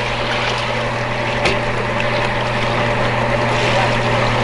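A boat's motor running with a steady low drone, over an even hiss of wind and water.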